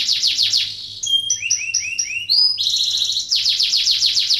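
Canary singing: fast trills of rapidly repeated downward-sweeping notes, about nine a second, broken about a second in by a phrase of slower rising notes, then a fast trill again.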